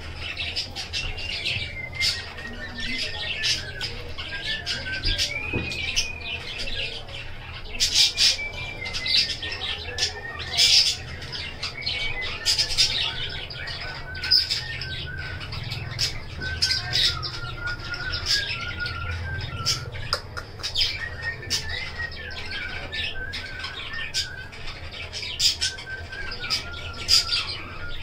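Baby budgerigar chick giving short, raspy squeaking calls in irregular clusters, the begging calls of a chick being fed formula from a syringe. A thin wavering tone and a steady low hum run beneath.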